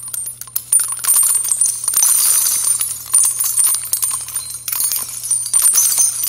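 A bright jingling, tinkling sound effect, like small bells or coins shaken, made of a dense run of sharp clinks. There is a brief lull a little past the middle, and a low steady hum lies underneath.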